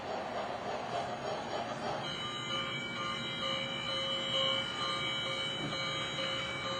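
Model railway train running on its track: a steady rolling rattle of wheels and motor, with a steady high whine joining in about two seconds in.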